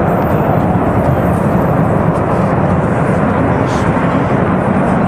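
Steady, loud roar of a ruptured gas pipeline burning as a giant jet of flame, sounding like a jet aircraft.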